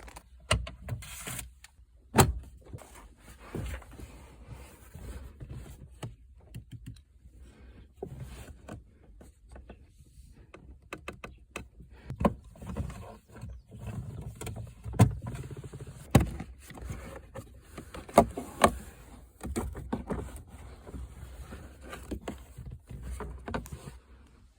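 Irregular sharp plastic clicks and knocks with soft rustling: hands working on the cabin air filter housing and trim during an air-conditioner filter change.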